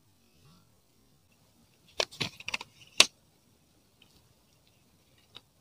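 A few quick, sharp splashes and knocks about two seconds in, then one loud knock about a second later, as a hooked climbing perch (betok) is pulled from the water on a pole line.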